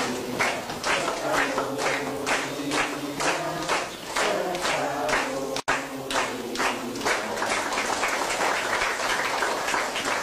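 A group of people clapping in steady time, about two to three claps a second, with voices singing along underneath. The sound drops out for an instant just past halfway.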